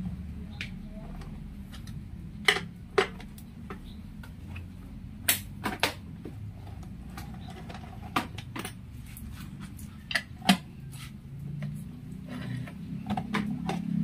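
A long screwdriver working at the mounting of a Kawasaki Barako motorcycle's old rear fender as it is taken off: irregular sharp clicks and knocks of tool against fender and fastener, about eight in all, over a steady low hum.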